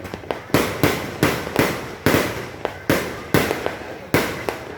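Fireworks going off in quick succession: sharp bangs about two to three a second, each fading out over a fraction of a second before the next.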